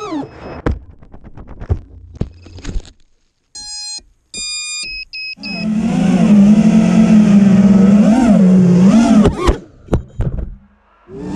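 A 5-inch FPV racing quad crashing: a scatter of knocks and thuds as it tumbles, then a short gap and a few electronic beeps. About five seconds in, the quad's brushless motors start to whine, the pitch swinging up and down with the throttle, until a couple of sharp impacts near the end cut them off.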